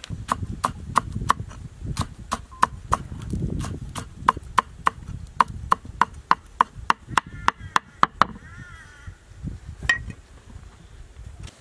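Cleaver chopping green onions on a wooden cutting board: a steady run of sharp knocks, about four a second, that stops after about eight seconds.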